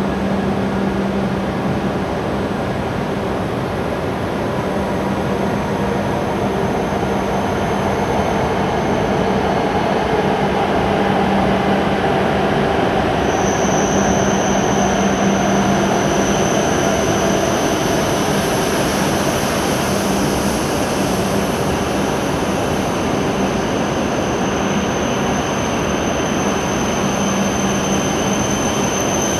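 E7-series Shinkansen train pulling slowly into a covered station platform, a steady running rumble that swells a little as the cars pass. A thin, high squeal sets in about halfway and holds as the train slows.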